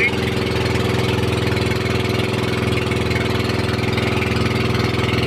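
Outrigger fishing boat's engine running steadily at an even speed.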